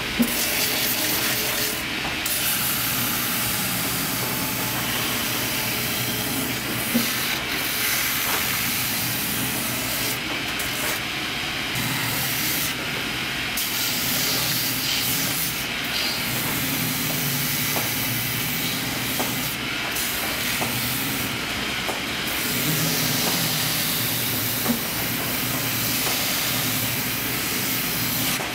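A workshop machine running with a steady rushing hiss over a low hum, the upper hiss dropping out briefly every few seconds, with a couple of sharp ticks.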